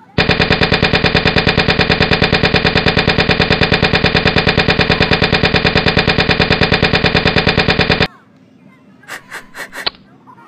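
Loud, rapid pulsing buzz, about ten pulses a second, holding steady for about eight seconds and cutting off suddenly. It is followed by a few short sharp clicks near the end.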